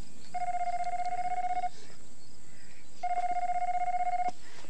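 Telephone ringing twice with an electronic warbling ring, each ring lasting over a second with a pause of about a second and a half between them.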